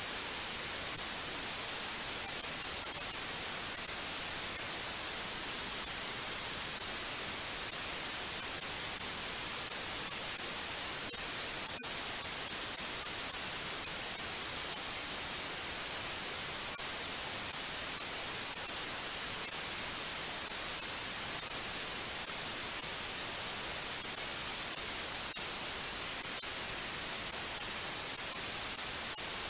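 Steady white noise: an even, unchanging hiss, strongest in the high end.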